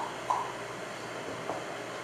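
Quiet room tone, a steady hiss, with two short faint sounds in the first half-second and a faint click about a second and a half in.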